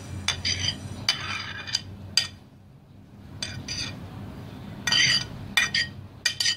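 A utensil scraping and clinking against a ceramic plate as chopped herbs, onion and green chillies are pushed off it into a bowl: a run of short ringing clinks, with a quiet pause about two and a half seconds in.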